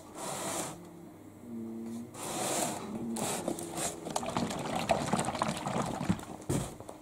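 Leftover engine oil sloshing inside a 5-litre plastic oil canister as it is swung and tipped, in bursts near the start and about two seconds in, then more continuously until near the end.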